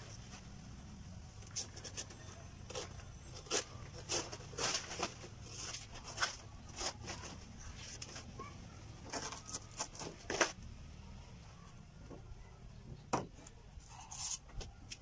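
Knife cutting and scraping a fresh banana leaf stalk while the leaf blades are stripped off: irregular short scratching and tearing strokes.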